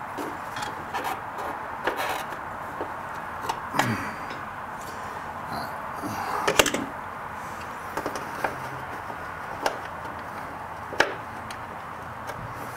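Scattered light clicks, knocks and rubbing from hands fitting parts at the top of a front shock absorber, over a steady background hiss. The sharpest click comes a little past halfway.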